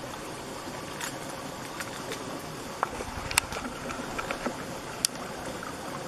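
Steady outdoor rushing noise with no pitch to it. A few sharp clicks and ticks cut through it, the loudest about halfway through and again near the end.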